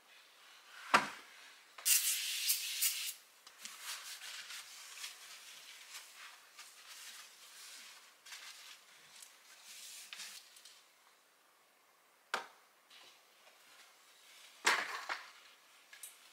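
Aerosol spray hissing for about a second, then a paper towel rubbing back and forth across a glass tabletop in a run of wiping strokes. There is a sharp knock before the spray and two more knocks near the end as objects are set down on the glass.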